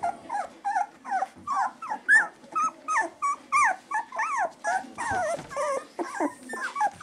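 Husky puppies whining and yelping in a quick, steady string of short high calls, most sliding down in pitch, about three a second, as they scramble over one another.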